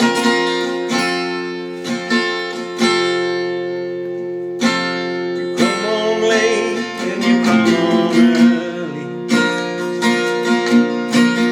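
Acoustic guitar strummed in a steady rhythm, with a voice singing a line from about six seconds in.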